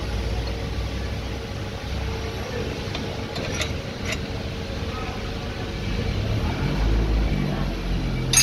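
Steady low background rumble with a few short clicks, the sharpest and loudest near the end.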